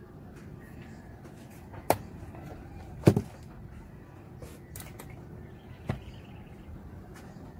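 Three sharp clicks or knocks over a low steady hum. The loudest, a double click, comes about three seconds in; the others fall about two and six seconds in.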